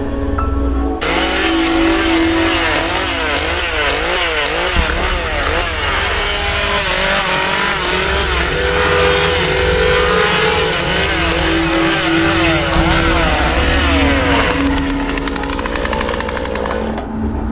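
Gas chainsaw starting up suddenly about a second in and revved up and down repeatedly, its pitch rising and falling over and over, then easing off near the end.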